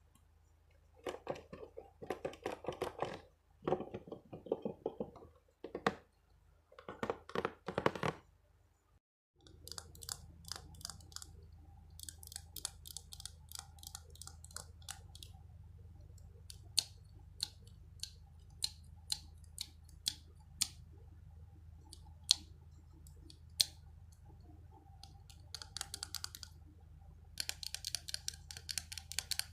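Close-miked ASMR trigger sounds: an object being handled and scratched in short bursts, then, after about nine seconds, a run of sharp, separate clicks and taps with denser scratchy bursts near the end.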